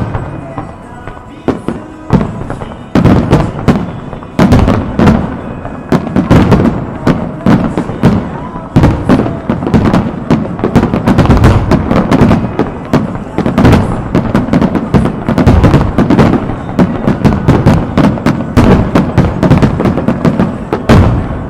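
A dense barrage of aerial firework shells bursting, booms and crackles overlapping several a second, thickening after about two seconds.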